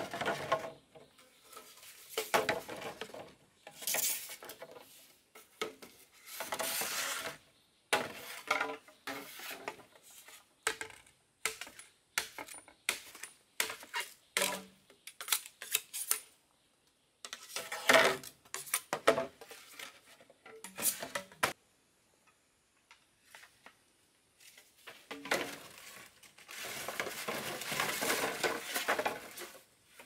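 Irregular clatter of objects being handled: many short knocks and clicks with a few longer scraping stretches, and a lull a little after the middle.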